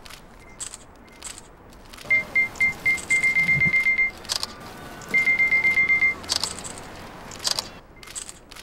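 Electronic beeps at one high pitch: three short beeps, then a fast run of beeps lasting about a second, and another fast run a second later. Sharp clicks of camera shutters are scattered throughout.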